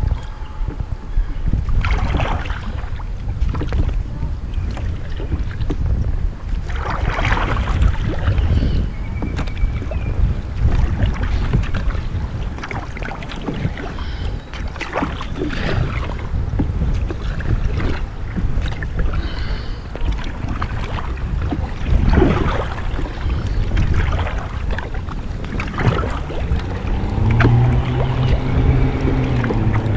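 Kayak paddle strokes splashing and dripping in river water every few seconds, over steady wind rumble on the microphone.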